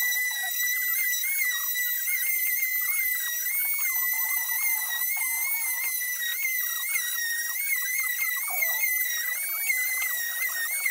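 Electric detail sander running against the edge of a wooden slab: a steady high whine with small wobbles in pitch, over a rough sanding scrub.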